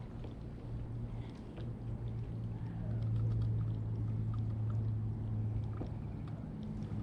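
Steady low drone of a boat's motor, with faint scattered clicks over it.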